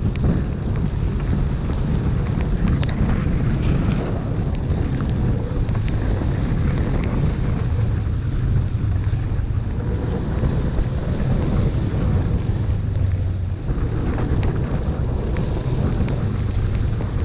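Steady low engine hum under a dense wash of water and wind noise on the microphone, from traffic moving through a flooded street, with a few scattered clicks.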